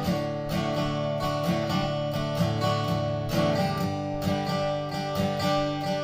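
Seagull SWS mahogany acoustic guitar strung with Martin Retro Monel strings, played with a steady run of strummed and picked chords.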